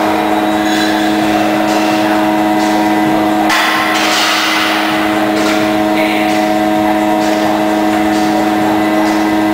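Loud, steady mechanical hum with a constant drone under a noisy rush, with a brief swell of broader noise about halfway through.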